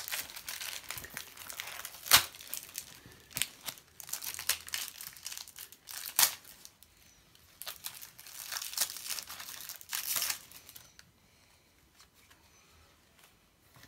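Match Attax foil card packet being crinkled and torn open, with several sharp, loud crackles of the wrapper; the crinkling stops about eleven seconds in.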